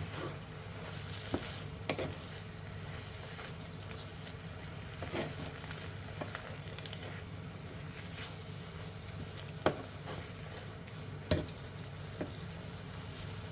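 Dakgalbi, chicken with onions and carrots in chilli paste, sizzling as it is stir-fried in a pan, with a few sharp knocks and scrapes of the utensil against the pan. A steady low hum runs underneath.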